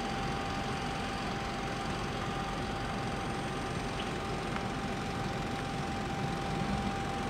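Steady machine drone on an airport apron: a constant mid-pitched whine over an even rushing rumble, with no change in pitch or level.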